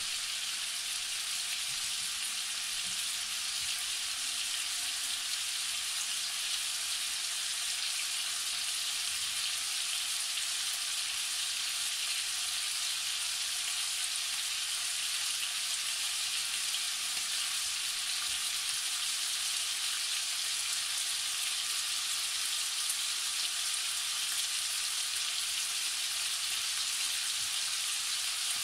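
Diced lamb sizzling steadily as it sears in a hot nonstick pan.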